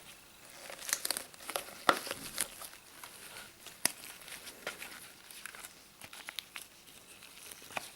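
A plastic drill bit set and its packaging being handled: quiet crinkling and rustling with scattered light clicks.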